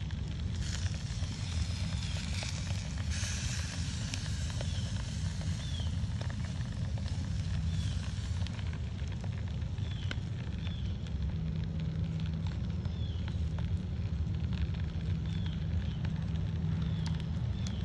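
Charcoal fire burning in an open barbecue pit: a low steady rumble with light crackles, and faint short high chirps every second or so.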